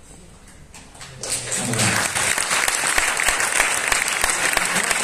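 An audience breaks into applause about a second in, many hands clapping steadily after a short lull.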